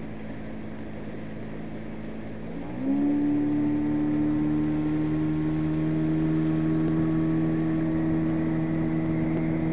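Boat's outboard motor running under way. About three seconds in the throttle is opened: the engine note rises in pitch, gets louder and then holds steady at the higher speed.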